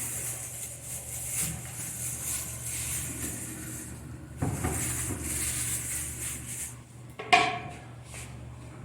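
Kitchen handling sounds: dishes, pans and utensils clinking and being set down, with a knock about four and a half seconds in and a short sharp clatter a little after seven seconds, over a steady low hum.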